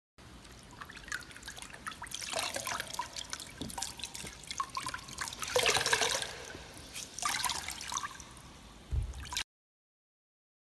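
A wet cloth wrung out by hand, water trickling and dripping out of it in several squeezes, the biggest about halfway through. A short low thump comes near the end, and the sound cuts off abruptly.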